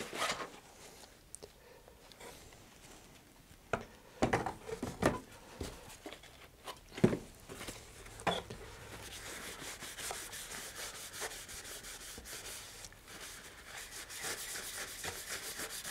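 Paper rustling and a few handling knocks, then from about nine seconds steady rubbing as a paper towel wet with rubbing alcohol wipes excess epoxy off a fiberglass rocket tube.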